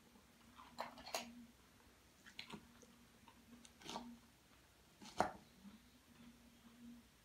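A metal fork clicking and scraping in a bowl of salad, several times, the sharpest click about five seconds in, mixed with chewing of salad. A faint steady hum underneath.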